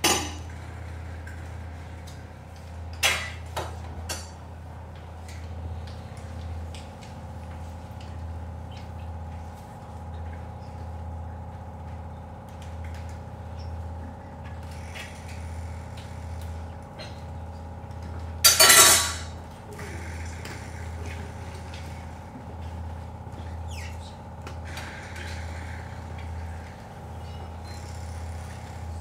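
Live experimental electronic sound played through loudspeakers: a low hum that pulses, with steady higher tones over it, broken by a few sudden loud noisy bursts, the loudest about two-thirds of the way through.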